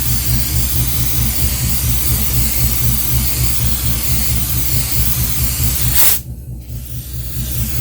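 Air and paint hissing out of a homemade PET-bottle spray gun fed by a refrigerator compressor, over the compressor's low hum. The spray cuts off sharply about six seconds in, and the hum carries on.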